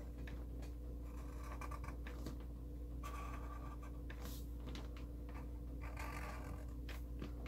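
Black Sharpie permanent marker drawing on paper: a run of soft scratching strokes of the felt tip as the outlines are traced, over a steady low hum.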